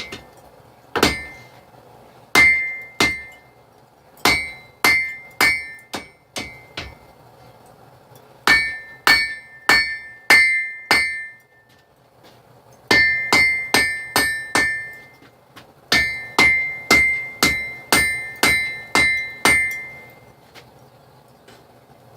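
Forging hammer striking hot steel on an anvil to shape a knife blank, in five bursts of a few blows about two a second, each blow with a short bright ring.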